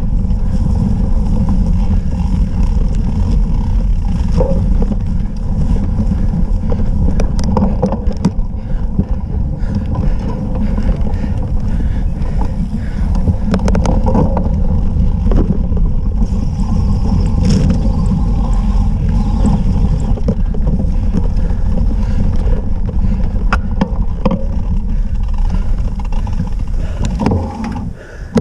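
A cyclocross bike ridden hard over bumpy grass and mud, heard through an action camera's microphone. Steady wind buffeting and tyre rumble run under frequent rattling clicks and knocks from the bike. The noise drops away sharply near the end as the bike comes to a stop.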